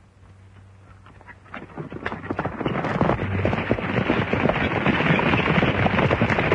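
Hoofbeats of horses galloping, a dense clatter that grows from faint to loud from about a second and a half in as the riders come close.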